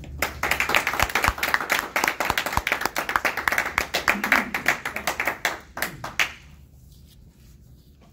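A small audience clapping in welcome for about six seconds, individual claps easy to pick out, then stopping.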